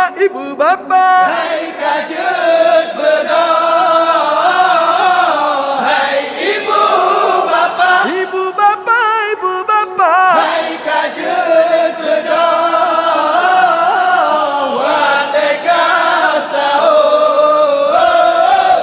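Group of men chanting an Acehnese sahur wake-up song without instruments, a lead singer at a microphone carrying the melody with the group singing along. About halfway through, a voice carries a wavering, ornamented line.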